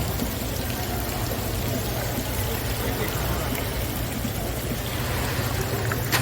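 Steady running, splashing water over a low, even hum, typical of the circulation pumps on live-seafood tanks. A single sharp click comes just before the end.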